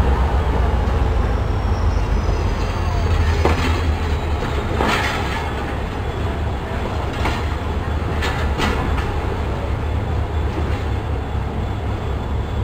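Pakistan Railways passenger coaches rolling past close by: a steady low rumble of wheels on track, broken by sharp clacks at uneven intervals as wheels cross rail joints.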